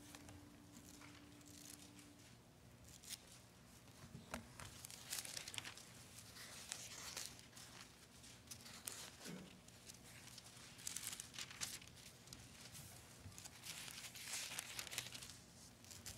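Thin Bible pages being leafed through, a series of faint paper rustles and crinkles as the passage is looked up.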